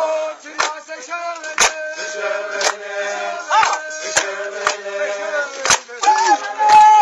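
A group of men singing a Zulu dance song together in held, sliding notes, with sharp beats falling about once a second. Near the end a high held call slides steeply down in pitch.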